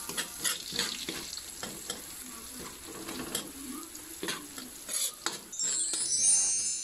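Minced garlic frying in oil in a wok, stirred and pressed with a metal spoon: a steady sizzle with repeated clicks and scrapes of the spoon on the pan. The hiss grows louder near the end.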